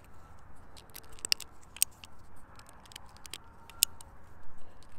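Small metallic clicks and ticks as percussion caps are pressed from a star-shaped capper onto the nipples of a reproduction Colt 1861 Navy cap-and-ball revolver and the cylinder is turned by hand between them. The clicks come irregularly, a few sharper ones standing out.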